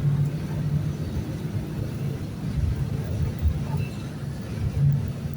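Mercedes-Benz OF-1519 city bus's four-cylinder turbodiesel running with a steady low rumble.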